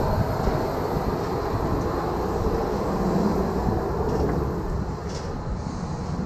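Boeing 737-800 airliner rolling on the ground after landing, heard from the cabin: a steady low rumble of engines and wheels that slowly gets quieter as the plane slows.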